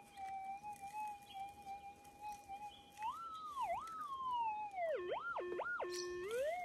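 Gold detector's steady threshold hum. About halfway through, its pitch swings up and down: it rises, dips, slides down, then swoops low and high twice before settling back to the steady hum. These are the pitch changes a detector gives as its coil sweeps over a target or the ground.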